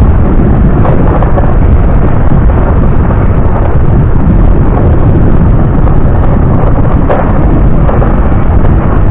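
Loud, steady wind buffeting on the microphone of a camera mounted on a moving vehicle, with road and vehicle noise underneath.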